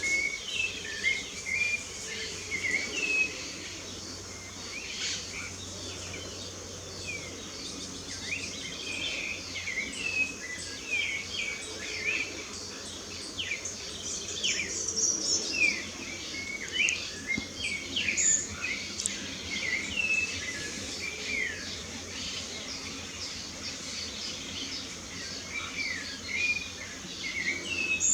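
A chorus of birds singing, many short whistled notes and quick chirps overlapping without a break, over a faint steady high hiss.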